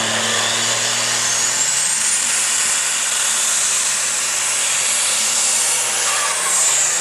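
Open Super Stock pulling tractor's turbocharged diesel engine revving hard at the start line. A high turbo whine climbs about a second in, holds as a steady scream, then drops near the end.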